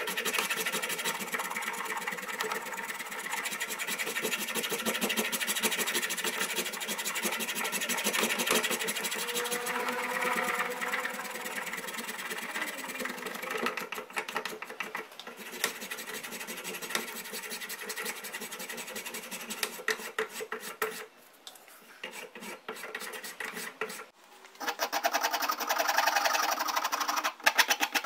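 Small power tool running against metal with a fast, even chatter, dropping out briefly and starting again with a different, louder tone about 24 seconds in.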